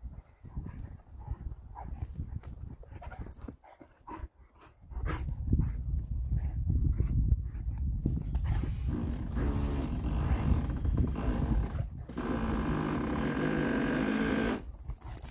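A dog making two long, drawn-out calls in the second half, over a low rumbling noise that starts about a third of the way in.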